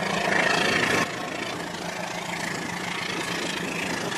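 Toy train locomotives running on plastic track, a steady engine-like mechanical drone that is louder for about the first second.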